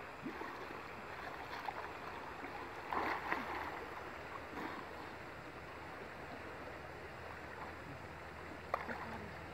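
Steady wash and slosh of muddy river water around people swimming. There is a short louder burst about three seconds in.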